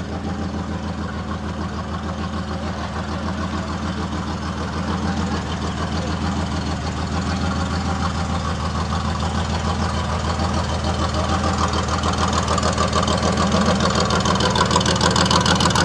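Rally-raid buggy's engine idling steadily with an even pulsing beat, growing gradually louder toward the end.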